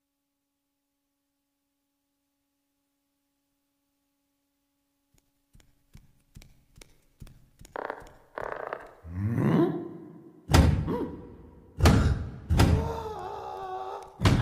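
Near silence for about five seconds, then cartoon sound effects: a quick run of light taps growing louder, a rising sliding sound, and four heavy thunks with ringing after them as big letters drop into place.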